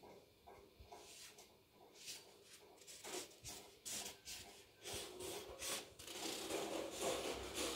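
Marker scribbling on paper in quick repeated strokes, faint at first and getting louder and busier from about two seconds in.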